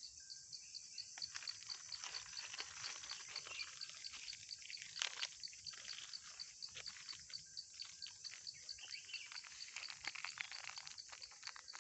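Goats browsing, biting and chewing forest foliage with irregular crunching and snapping, over a steady high-pitched chirp that pulses about six times a second.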